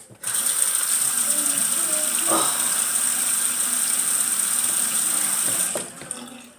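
Aerosol hairspray can hissing in one long, steady spray of about five and a half seconds, starting abruptly and tailing off near the end.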